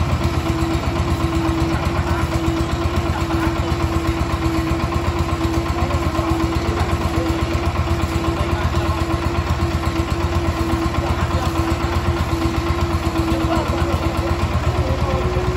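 An engine idling steadily, with an even, rapid beat and a constant hum that do not change.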